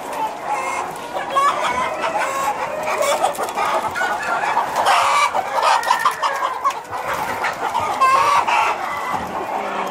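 A large flock of laying hens clucking and calling over one another in a dense, continuous chorus.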